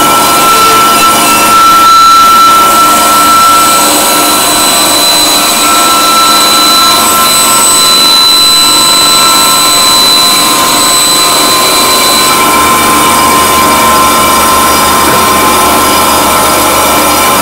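Emco Swing band saw running with a steady whine, its blade cutting a thin white sheet. About two-thirds of the way through, the highest tones stop and a lower hum comes in, and by the end the blade is running with no workpiece.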